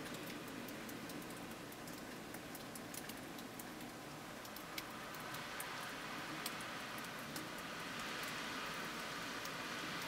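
Blizzard wind with wind-driven snow pattering and ticking against surfaces, like light rain, over a steady noise. It grows a little louder about eight seconds in.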